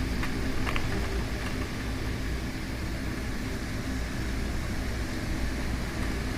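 Strong thunderstorm wind gusting and rain, a steady rushing noise with a deep rumble of wind buffeting the microphone. A couple of faint sharp ticks come about a second in.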